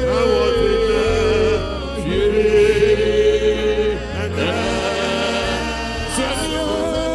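Gospel worship music: voices singing long held, bending notes over a steady, block-changing bass line.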